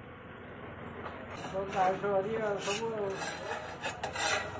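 A spatula scraping and rasping against a wok as noodles are stir-fried, with a wavering high tone through the middle and a couple of sharper scrapes near the end.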